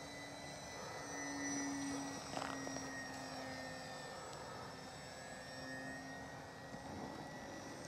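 Radio-controlled model airplane flying overhead, its motor and propeller making a faint, steady drone.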